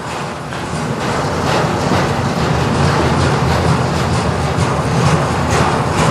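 Freight cars of a CN manifest train rolling past, a steady rumble of wheels on rail with occasional clicks.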